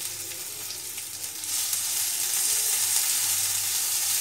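Chopped onion and garlic sizzling in a little olive oil in a wok while stirred with a spatula, the sizzle growing louder about a second and a half in.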